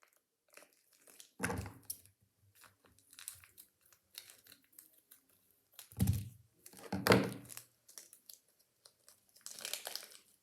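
Small plastic bag crinkling and tearing as it is handled and opened, with three louder bumps of handling: about a second and a half in, then around six and seven seconds.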